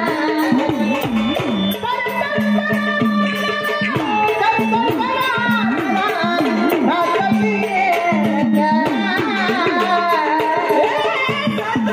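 Indian devotional folk music: tabla playing with bass-drum strokes that swoop up and down in pitch, under a held, gliding melodic line.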